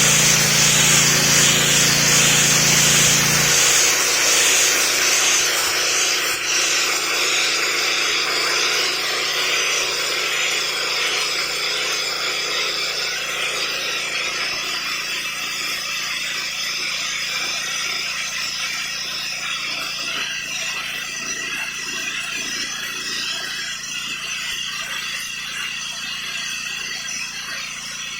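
A 3400 psi pressure cleaner spraying floor tiles: a steady high hiss of the water jet that slowly eases off. The machine's low hum drops away about three seconds in.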